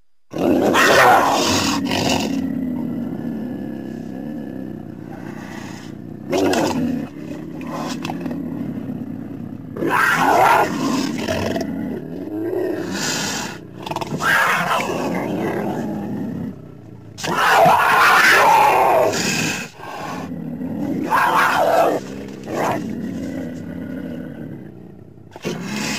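Cougar (mountain lion) giving a series of loud, harsh calls, each a second or two long with short gaps between.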